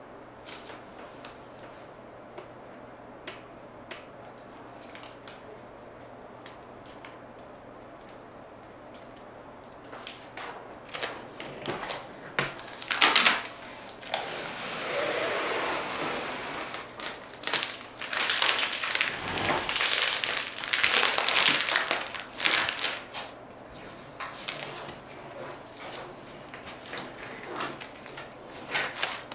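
Crinkling and crumpling of a protective covering being pulled off and handled, with scattered small clicks and taps. Faint at first; from about a third of the way in come louder bursts of crinkling through the middle, easing back to light clicks near the end.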